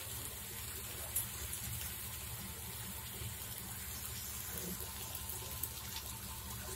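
Prawns and green masala gently sizzling in a pan as a faint, steady hiss, with a low steady hum underneath.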